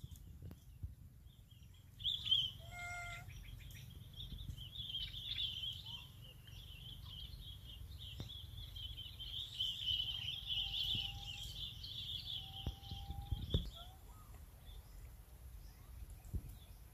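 Birds chirping busily in the background over a low rumble, with a short call about three seconds in and two drawn-out whistled notes in the last third; the chirping thins out near the end.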